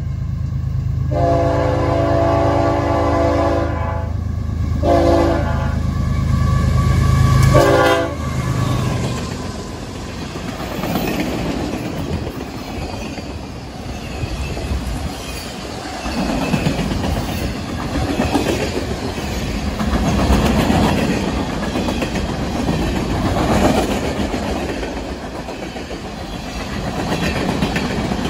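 Union Pacific diesel freight locomotives pass close by, their multi-chime air horn sounding a long blast and then shorter ones over a deep engine rumble. After about eight seconds the locomotives are gone and a string of freight cars rolls past: steel wheels on the rails, with rhythmic clickety-clack and swelling rumble.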